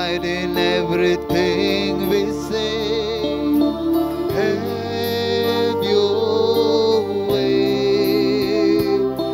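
Background devotional music with long held notes, some wavering with vibrato.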